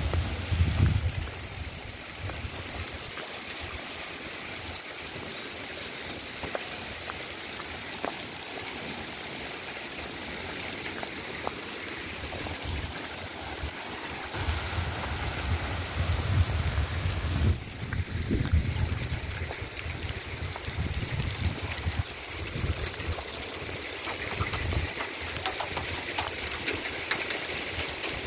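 Small hail mixed with rain falling steadily on grass and pavement, a dense hiss with scattered sharp ticks near the end. Low rumbles on the microphone at the start and again in the middle.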